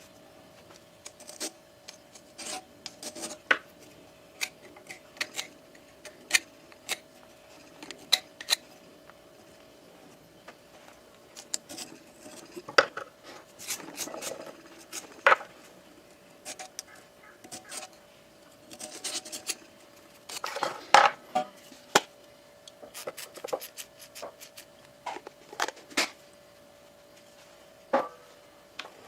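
Hand work on the metal parts of a seized vertical water-cooled knife grinder: irregular scraping and rubbing, broken by sharp metallic clinks and taps of parts and tools. The clinks are heaviest around the middle and about three quarters of the way through.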